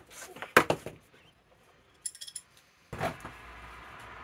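A metal spanner knocking and clinking on bolts at the top of a motorcycle's front forks: a sharp knock about half a second in, a few light ringing metallic clinks near the middle, and another knock about three seconds in.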